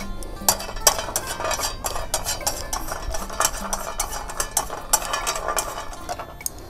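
Dried Chinese medicinal herbs rattling and rustling as they are handled and put into a bag: a dense, irregular run of small clicks and crinkles that thins out near the end.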